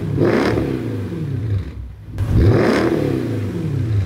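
Mercedes SL550's 5.5-litre V8 revved twice through its muffler-deleted exhaust. Each rev climbs quickly and falls back, the second about two and a half seconds in.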